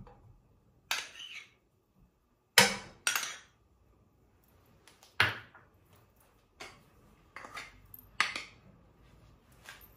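A spoon clinking and scraping against a glass bowl and a nonstick frying pan as butter is scooped out, about eight sharp separate clinks, the loudest about two and a half seconds in.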